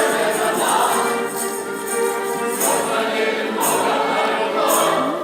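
A group of voices singing a song over music, with bright jingling strikes about every second in the second half. The music stops abruptly near the end.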